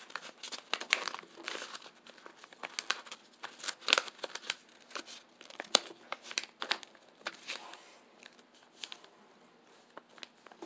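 A sheet of printer paper rustling and crinkling as it is folded and creased by hand, in irregular short crackles. It goes quieter for a couple of seconds near the end.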